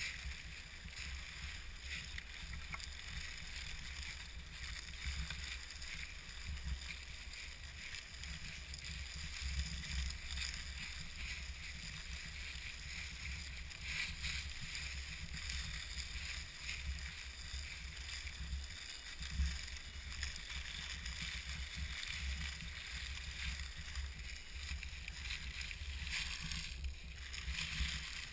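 Axial SCX10 scale RC crawler driving over dry leaves: its small electric drivetrain running and its tyres crackling through the leaf litter, with a steady low rumble underneath.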